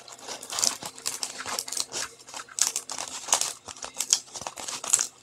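Diamond painting canvas and its paper cover crinkling and crackling in irregular bursts as it is handled and unrolled, the paper lifting away from the canvas.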